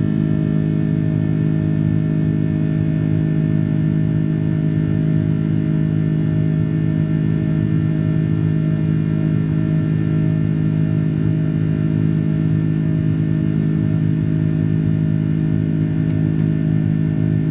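Airbus A330 cabin noise in flight: the jet engines' steady, unchanging drone, a low hum with many overtones over a rumble.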